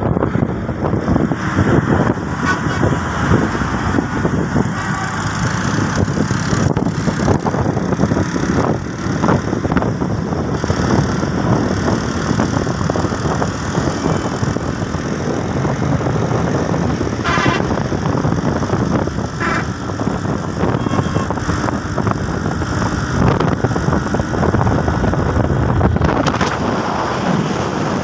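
Steady rumble of wind on the microphone and road noise from riding in a moving vehicle along a highway.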